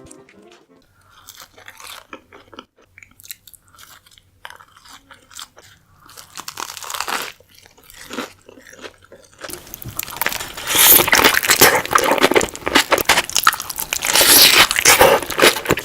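Close-miked burger eating: bites and crunchy, wet chewing, sparse at first and then much louder and denser from about ten seconds in.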